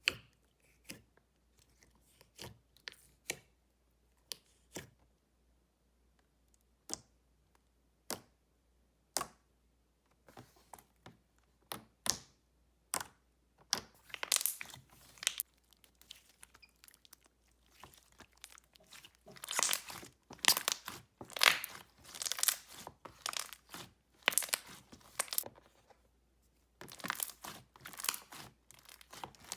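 Thick, clicky school-glue slime being stretched and squeezed by hand, giving sharp clicks and pops. These are scattered at first and come in dense crackling runs in the second half.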